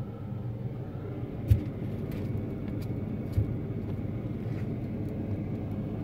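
Fridge freezer running with a steady low hum, broken by two short knocks about one and a half and three and a half seconds in.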